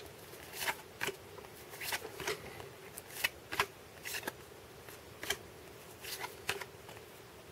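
1992 Upper Deck baseball cards being flipped one by one through a stack in the hands. Each card slides and flicks against the others, giving soft, irregular card-on-card clicks about one or two a second.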